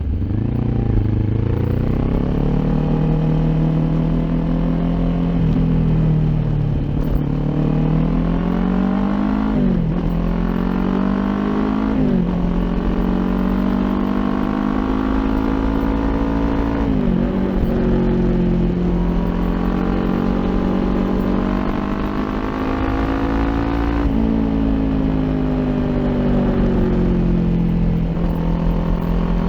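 Kawasaki Ninja 400 parallel-twin engine through an Akrapovic aftermarket exhaust, pulling under acceleration while riding. The engine note climbs in pitch and drops sharply several times as the rider shifts up through the gears.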